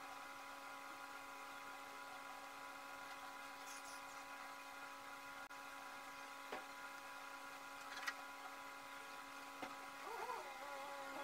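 Steady electric whir of a small motor, holding several fixed tones, with a few faint clicks. Near the end a soft wavering sound rises briefly over it.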